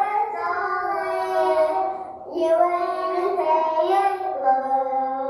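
A child singing a melody in long held notes, with a short break for breath about two seconds in.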